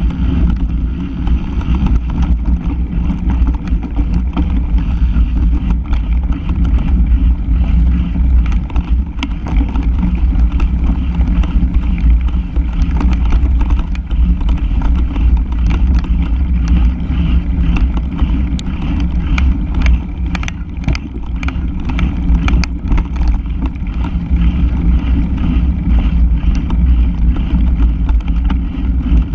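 Steady low rumble of a bike ridden fast over a leaf-covered dirt trail, picked up by a camera mounted near the front wheel. Sharp clicks and knocks from bumps come and go, thickest in the middle.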